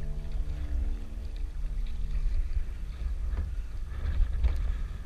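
Kayak paddle strokes splashing in the water, two of them in the second half, over a steady rumble of wind on the microphone.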